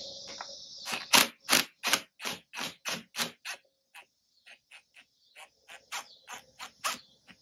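Cordless driver with a socket on an extension, run in short trigger pulses to back a brake line bolt slowly out of an ATV's brake master cylinder: about three sharp pulses a second. The pulses are loudest in the first half and come fainter and quicker after a brief pause. Crickets chirp steadily in the first second.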